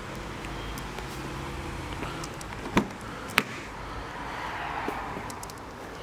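Steady low hum with two sharp knocks a little over half a second apart near the middle.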